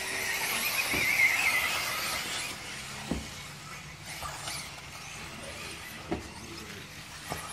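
High-pitched whine of electric RC buggies' brushless motors and drivetrains running on the track, wavering in pitch and fading out about two seconds in. A few light knocks follow.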